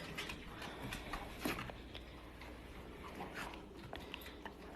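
Quiet room with faint, scattered small clicks and taps.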